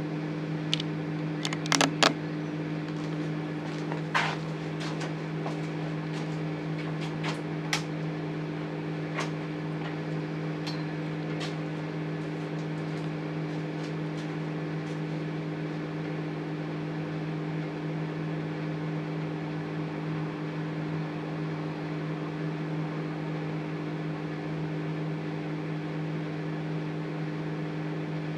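Microwave oven running with an egg inside, a steady electrical hum. Sharp clicks and crackles come every second or two at first and thin out after about eight seconds.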